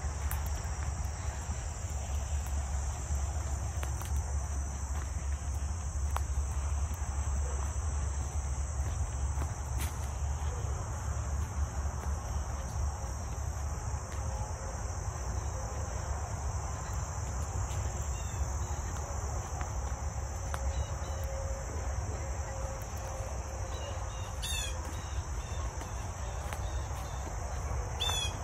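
Steady, high-pitched chorus of insects over a low rumble. A bird chirps briefly twice near the end.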